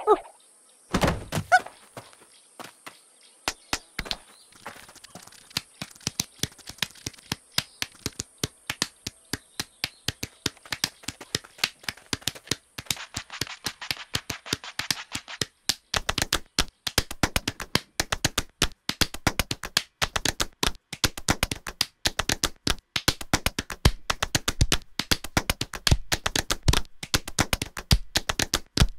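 A percussive rhythm of taps, clicks and thunks. It opens with a heavy thump about a second in, goes on as scattered taps, and about halfway through quickens into a dense, steady tapping beat.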